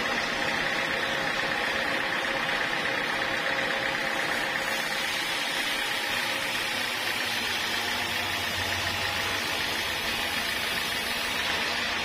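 Sawmill saw machinery running steadily, an even mechanical noise, with a low hum coming in about halfway and dropping away near the end.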